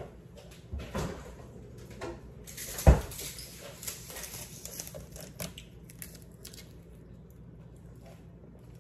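Scattered light knocks and one sharp thump about three seconds in, followed by small crackling clicks of a plastic water bottle being handled.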